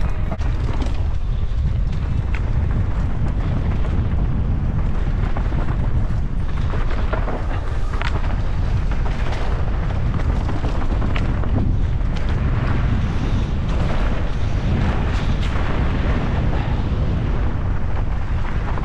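Mountain bike descending a rocky dirt trail: a heavy, steady rumble of wind buffeting the microphone over tyre noise on loose stones, with scattered sharp knocks and rattles from the bike over rocks.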